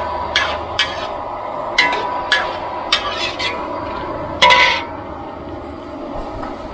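Metal ladle scraping and clanking against a large metal wok while stir-frying, about eight sharp strikes over the first five seconds, the loudest and longest with a short ring about four and a half seconds in. A steady rushing noise runs underneath.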